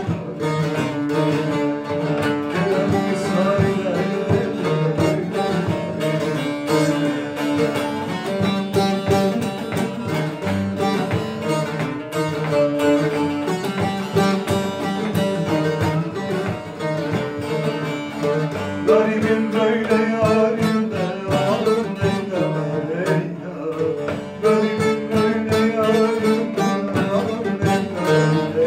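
Two bağlamas (long-necked Turkish saz) played with rapid plectrum strumming in a Turkish folk song, with a man singing over them at times, mostly in the second half.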